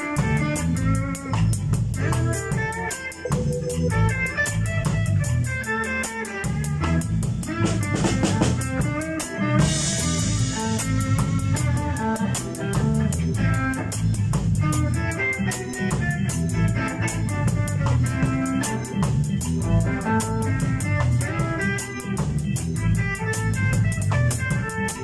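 A live band playing an instrumental stretch of roots reggae: drum kit, electric guitar and keyboard over a heavy, steady bass line.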